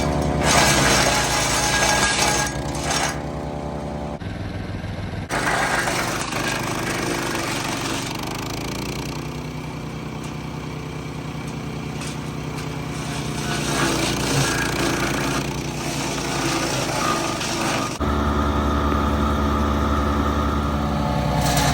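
MechMaxx 6-inch wood chipper running on its Kohler Command Pro 14 hp engine, with branches being fed in and chipped in crunching, crackling stretches, mostly in the first few seconds, again around six seconds in and in the middle. The engine sound changes abruptly a few times.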